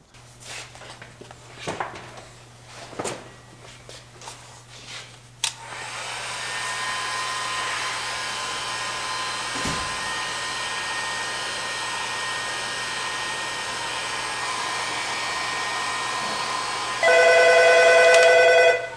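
A few light clicks and knocks, then a handheld heat gun blowing steadily from about five seconds in as it warms the re-glued dash vinyl. Near the end it turns much louder, with a high whine over the rush of air.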